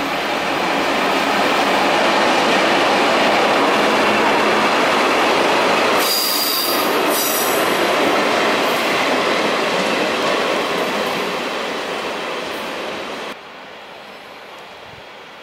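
Taiwan Railway diesel-electric locomotive hauling two electric locomotives and a caboose, passing close by on curved track: engine and wheel noise. A brief high wheel squeal comes about six seconds in, and the noise drops off sharply near the end.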